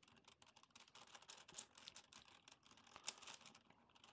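Plastic Gigaminx puzzle being twisted by hand: a fast, faint run of clicks and rattles as its layers turn, with one sharper click about three seconds in, then thinning out near the end.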